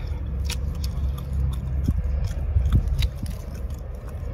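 Shrimp shell being peeled off by hand: scattered small crackles and clicks over a steady low rumble.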